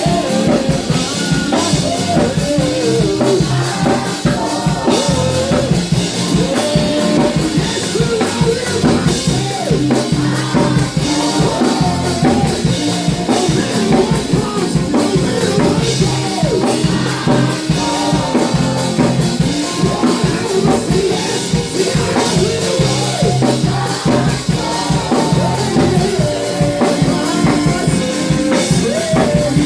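Live gospel praise and worship music: a band with drum kit and bass playing a steady beat while voices sing.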